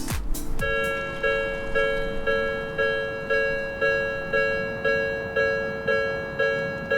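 Japanese level crossing's electronic warning bell starts sounding about half a second in, a ringing clang repeating about twice a second. A low falling thud is heard at the very start.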